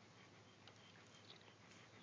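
Near silence: faint outdoor background with a few faint, short high chirps.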